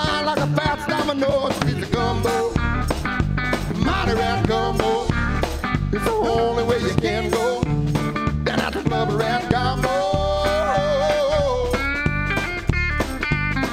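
Live bluesy rock band playing: electric guitars, bass and drum kit keeping a steady beat, under a wavering lead melody that bends in pitch.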